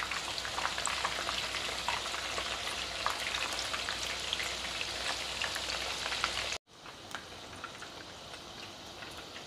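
Battered boneless chicken pieces deep-frying in hot oil in a kadhai, a steady sizzle and crackle, with light scrapes and knocks of a metal slotted spoon turning the pieces. About two-thirds of the way through it cuts out for a moment and comes back quieter.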